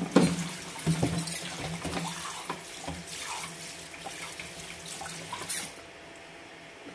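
Kitchen tap running into a sink while drinking glasses are washed by hand, with sharp knocks of glass on glass or on the sink. The water stops shortly before the end, just after a last sharp knock.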